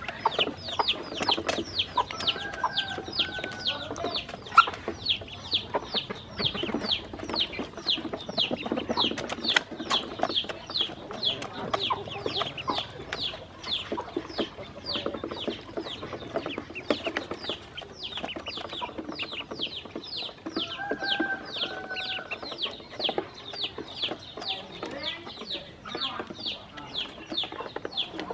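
Ducklings peeping steadily: a quick, unbroken run of high, falling peeps, about three a second. A few sharp clicks come through, the loudest about four and a half seconds in, and a lower held call sounds twice.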